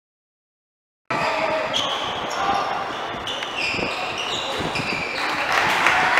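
Dead silence for about a second, then the live sound of a basketball game in a gym: sneakers squeaking on the court, the ball bouncing, and players calling out.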